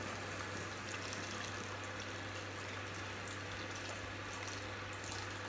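Freshly boiled water poured from an electric kettle into a pot of vegetables, a steady unbroken stream splashing onto them.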